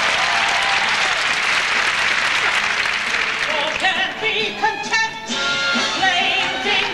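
Audience applause over music. About four seconds in the applause thins and voices singing with musical accompaniment take over.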